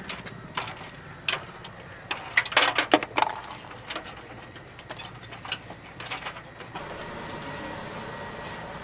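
A quick run of sharp metallic clicks and clanks, loudest about two to three seconds in, giving way about seven seconds in to a steady machine hum with a thin high whine.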